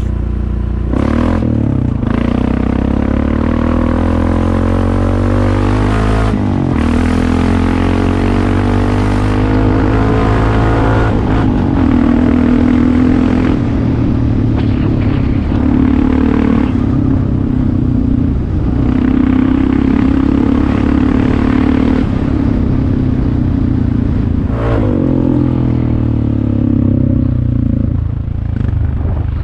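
Honda ATV engine running while being ridden on a trail, its pitch rising and falling as the throttle changes, with a steadier stretch in the middle and a few brief knocks and clatters.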